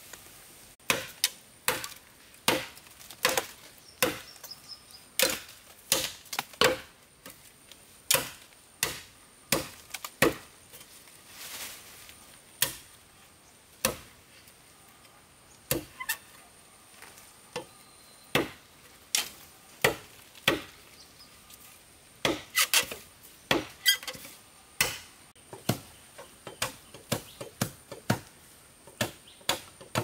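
A blade chopping into wood: sharp single strikes at an uneven pace, about one a second, coming faster in a cluster about three-quarters of the way through.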